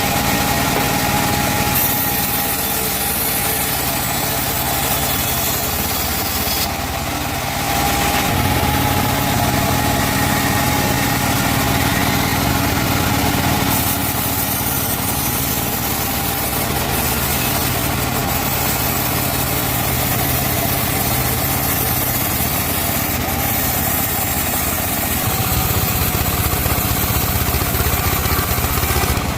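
Band sawmill running steadily as it slices a teak log, a continuous machine drone with a low hum that grows stronger about eight seconds in.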